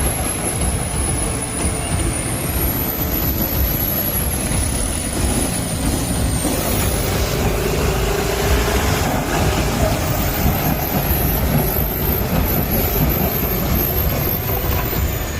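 Heavy vehicle engine running steadily: a continuous low rumble with a faint high whine that drifts slowly up and down in pitch.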